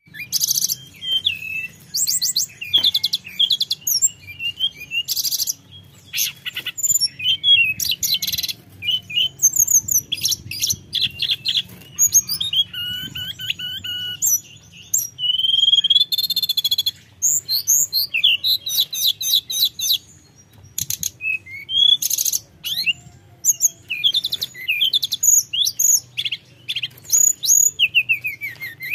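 Hill blue flycatcher singing in full voice, a long varied run of high whistles, pitch glides and fast trills in phrases broken by short pauses.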